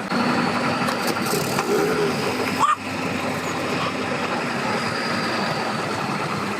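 Engine running steadily with an even hum, briefly dropping out about three seconds in.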